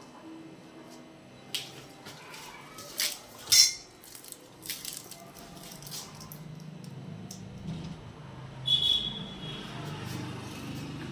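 Scattered light metallic clinks and knocks, with a louder knock about three and a half seconds in. A brief high squeak comes near the end, over a low hum that builds from about halfway.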